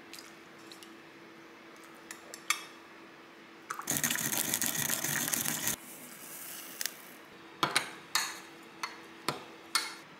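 Liquid is poured into a small glass bowl of sauce for about two seconds. Then a hand sesame grinder is twisted over the bowl, giving a run of short crunches about one every half second.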